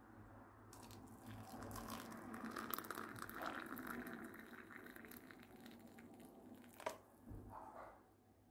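Rustling, crinkling handling noise of many small crackles, with one sharp click near the end.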